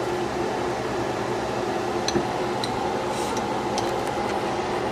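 Steady room hum, like a fan running, with a few light clinks of dishes or utensils about two seconds in and again near the end.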